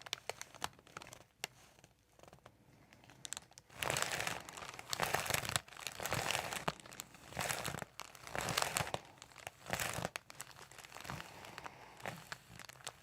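Rustling and crinkling handling sounds of a chiropractic adjustment: the patient's body and the chiropractor's hands moving against clothing and the treatment table, in several bursts of about a second each, mostly in the middle.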